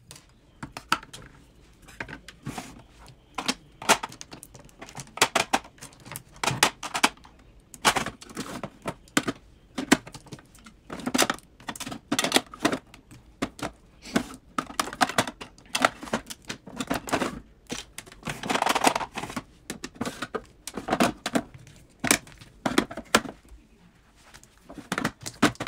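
Plastic makeup compacts, palettes and pencils clacking and tapping as they are set into the drawers of a clear acrylic organizer: many quick, irregular clicks and knocks.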